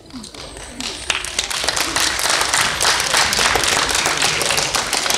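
Audience applauding, the clapping swelling about a second in and then holding steady.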